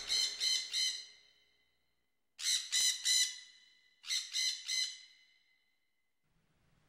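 Bird calls in three runs of three or four short high cries each, the runs about a second and a half apart, each fading out with an echo-like tail.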